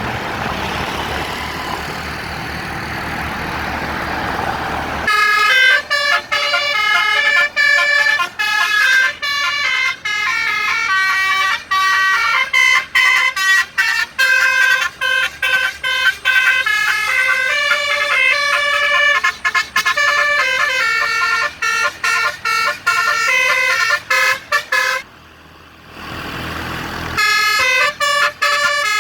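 A bus's Basuri telolet multi-tone horn playing a fast melody of short, stepped notes, starting about five seconds in, with a short pause near the end. Before the horn starts there is a steady, noisy vehicle rumble.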